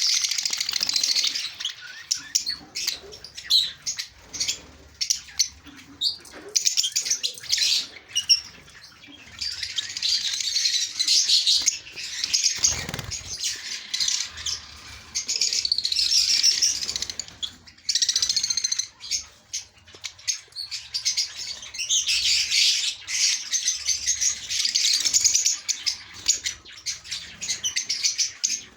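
A flock of small aviary birds chirping and twittering continuously, many at once, with wings fluttering now and then.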